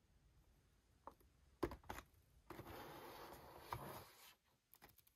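Cardboard toy box with a clear plastic window handled on a tabletop: two light knocks a little over a second in, then a soft rubbing scrape for about two seconds as the box is tilted and turned, ending in a few faint ticks.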